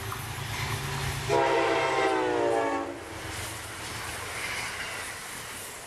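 Amtrak passenger train passing at speed, its locomotive horn sounding once for about a second and a half with the pitch dropping as it goes by. Under and after the horn are the rumble and rush of the train.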